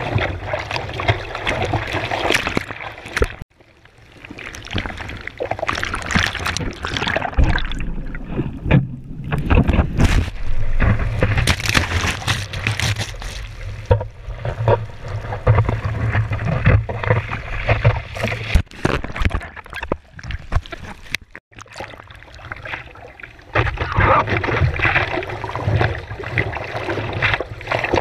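Seawater sloshing and splashing against a board-mounted action camera while a surfer paddles, in an irregular run of wet strokes, with two sudden brief dropouts.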